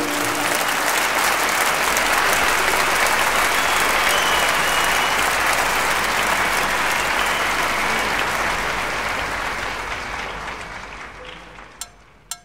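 Audience applauding over the last notes of music, steady for several seconds and then dying away near the end.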